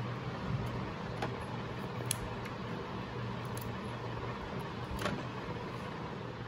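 A few faint, short clicks and taps as green chillies are snapped by hand and dropped onto tomatoes in a steel mixer-grinder jar, over a steady low hum of room tone.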